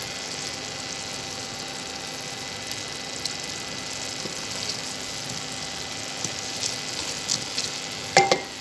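Thin sugar syrup boiling in a steel pot with a steady bubbling hiss, stirred with a wooden spoon that scrapes and ticks lightly. A few sharp knocks come near the end.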